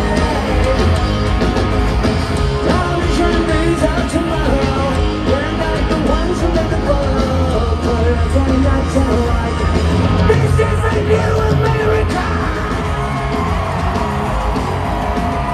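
Live rock band playing loudly through a stadium PA, with distorted guitars, drums and a singer shouting and singing, picked up from the stands.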